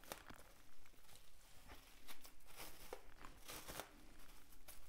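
Plastic cling wrap crinkling and rustling in faint, irregular bursts as a log of ground beef is rolled up in it by hand.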